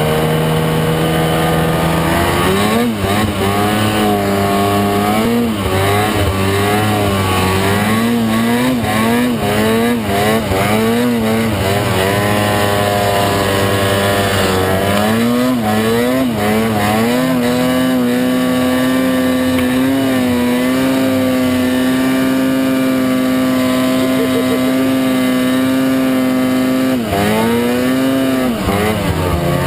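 Snowmobile engine under throttle while climbing through deep snow. It revs up and down in a run of quick surges, then holds steady high revs for about ten seconds, drops sharply near the end and picks up again.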